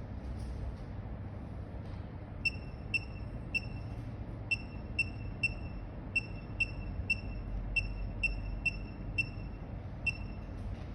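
About fifteen short, high-pitched electronic beeps at uneven intervals, over a steady low hum.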